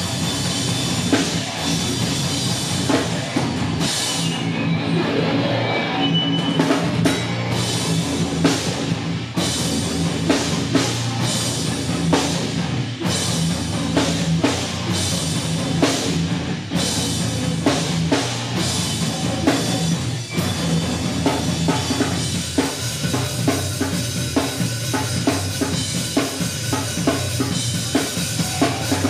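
Heavy rock band playing live and loud: a drum kit with hard bass drum and cymbal hits driving over sustained low, distorted bass and guitar notes.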